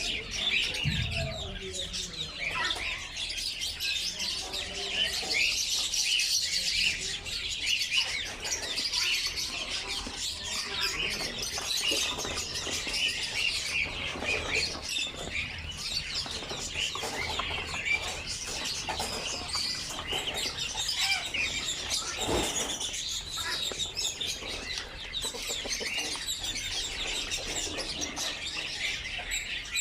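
Many caged birds at a bird market chirping and twittering together in a dense, continuous chorus.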